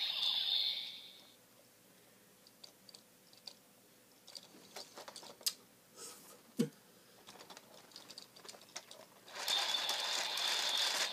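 Kamen Rider Build Driver toy belt with fullbottles: its electronic sound effect fades out in the first second, followed by several seconds of small plastic clicks and knocks as the toy is handled. About nine seconds in, the belt's loud electronic music and sound effects start playing again through its built-in speaker.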